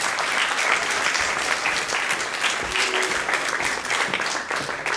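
Audience and people on stage applauding: many hands clapping in a dense, steady patter.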